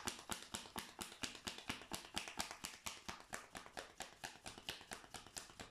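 Deck of oracle cards being shuffled by hand: a quick, even patter of cards slapping together, about eight a second, growing fainter near the end.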